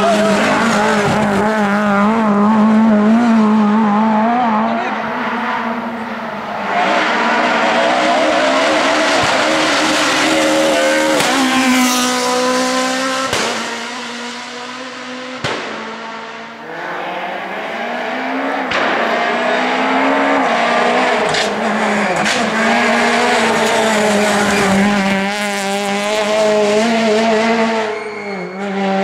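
Rally car engine revving hard, its pitch climbing and dropping again and again through gear changes, with a few sharp cracks midway.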